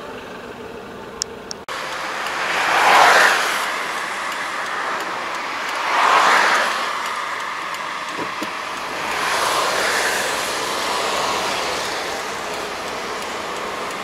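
Road noise of a moving car heard from inside. After a sudden jump in level just under two seconds in, three swelling whooshes of passing traffic rise and fall.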